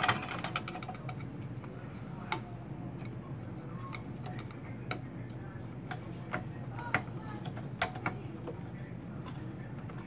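Scattered sharp clicks and taps of hands pressing and working a Ross HyperSPARC MBus CPU module to seat it in a SPARCstation 20 motherboard; the loudest clicks come about two, six and eight seconds in. A low steady hum and a faint high whine run underneath.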